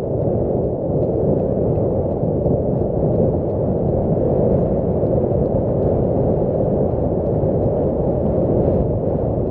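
Wind buffeting the microphone aboard a moving river cruise ship: a steady, loud, low rumble.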